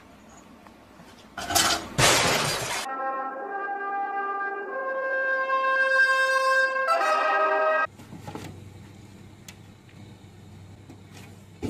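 A short loud crash about a second and a half in, then brass music playing a few held notes for about five seconds before cutting off abruptly. Faint room noise with a few light knocks follows.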